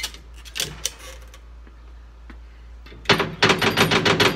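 A couple of sharp metallic knocks, then from about three seconds in a fast run of metal clicks and rattling with a steady hum beneath. This is the skid steer's hydraulic lift cylinder being jiggled and pulled on to work its gland loose.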